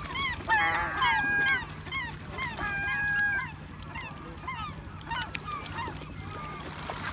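A flock of gulls calling: many short arched calls overlap, with a couple of longer drawn-out calls in the first three seconds, then the calls thin out and grow fainter.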